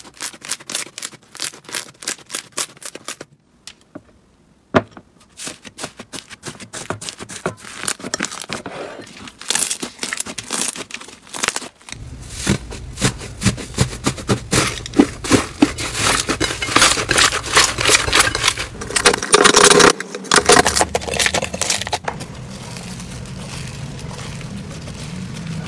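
Hands squeezing and kneading slime, first a glossy blue slime, then a marbled cloud slime and a pink foam-bead slime, making dense runs of sticky clicks, pops and crackles. The crackling is thickest through the middle stretch and thins near the end to a softer sound over a low steady hum.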